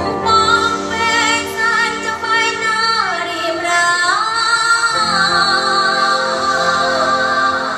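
Music with a female voice singing long, wavering held notes, swooping down and back up about three seconds in, over steady sustained tones.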